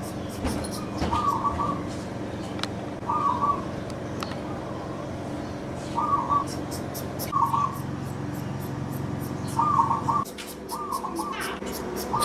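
An animal's short squeaky calls, each a quick run of two or three notes, repeated every one to three seconds over a steady low hum that drops away near the end.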